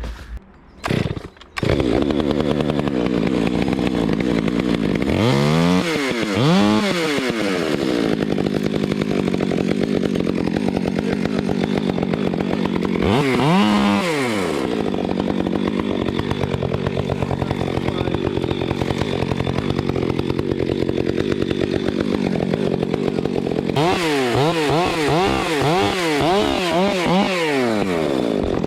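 Chainsaw starting up about a second and a half in after a couple of short bursts, then running steadily.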